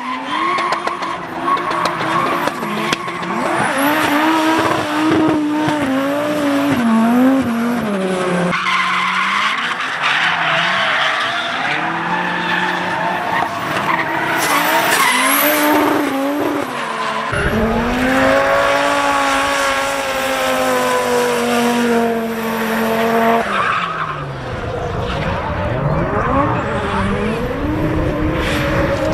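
VW Scirocco drift car's engine revving hard, its pitch swinging up and down with the throttle and held high for several seconds about two-thirds of the way through, while the tyres squeal and skid through the drifts.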